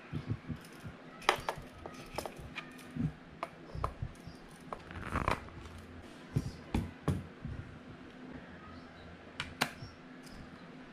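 Plastic and metal parts of a cordless pressure washer (gun, lance and nozzle fittings) handled and set down on a wooden table: scattered clicks and knocks, the loudest about a second in.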